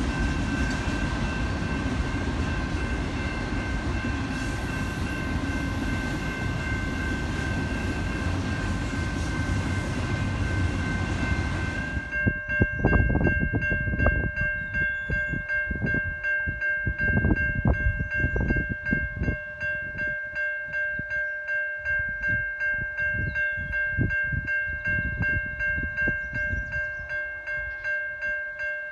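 A train rolling past close by with steady rumble and hiss, which stops abruptly about twelve seconds in. Steady ringing tones, most likely grade-crossing warning bells, sound throughout and keep pulsing about one and a half times a second after the train noise ends, with a few low knocks in between.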